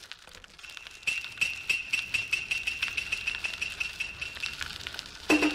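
Animated-intro sound effects: a steady run of small clicks, about four a second, each with the same high ringing tone, like a bicycle ticking along. Near the end comes a single louder chime.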